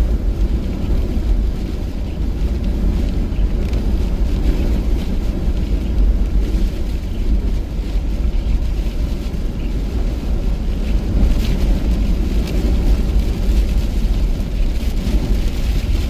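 Steady low rumble of a car driving through heavy rain, heard from inside the cabin, with a few faint taps.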